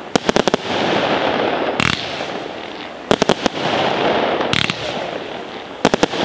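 Fireworks battery (batteria alla bolognese) being fired: sharp bangs of bursting shells, a fresh bang or quick cluster of several about every one and a half seconds, over a continuous crackle.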